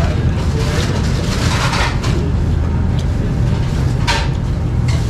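Busy restaurant ambience: a steady low rumble with faint background chatter. Two short noisy bursts of eating sounds come about a second and a half in and about four seconds in.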